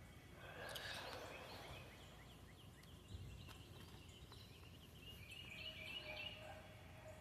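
Faint birds calling, with a brief rustle of plants and soil being handled about a second in.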